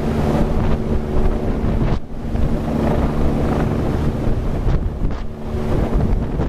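Rescue helicopter hovering overhead: its rotor wash buffets the microphone with heavy wind noise over a steady engine and rotor drone that dips briefly twice.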